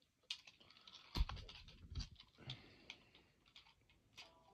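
Clicks and clatter of plastic toys being handled, with one heavier thump about a second in. Near the end an electronic toy tune starts.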